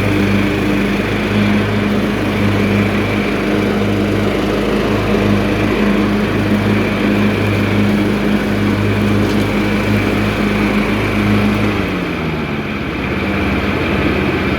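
Key-start lawn mower engine running steadily on diesel-contaminated fuel that it is burning through. About twelve seconds in, the engine speed drops to a lower, steady running speed.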